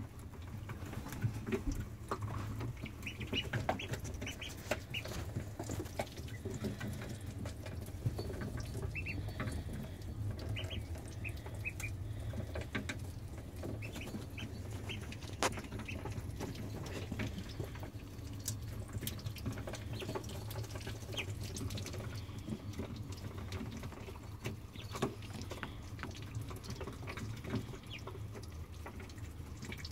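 Ducklings peeping now and then in short high calls while they peck at dandelion greens, with many small taps and clicks of bills, over a steady low hum.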